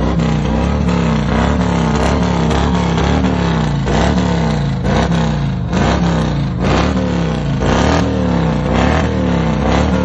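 Motorcycle engine revved over and over in quick throttle blips, its pitch rising and falling in a steady rhythm, about two rises a second, with a few louder noisy bursts midway.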